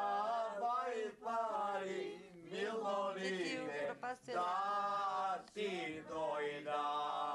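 A man singing, in several long held phrases with short breaks between them.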